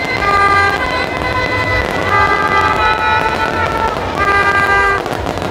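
Several horns tooting in repeated, overlapping blasts of half a second to a second each, at a few different pitches, over a steady loud background din.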